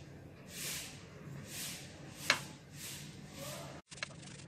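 A knife cutting the crusts off a slice of white bread on a steel plate: faint, soft rasping strokes about once a second, with one sharp tap of the blade on the plate about halfway through.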